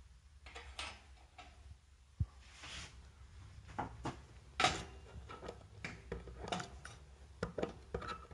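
A string of light, irregular knocks, clicks and rustles, as of things being handled or moved, over a low hum; the sharpest knock comes about two seconds in and the loudest about halfway through.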